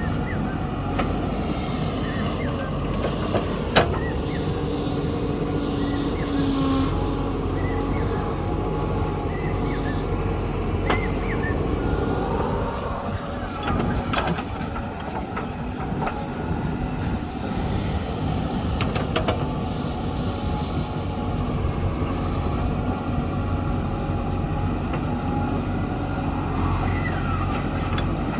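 Heavy diesel engines of a backhoe loader and trucks running steadily, with occasional sharp metallic knocks, the loudest about four seconds in.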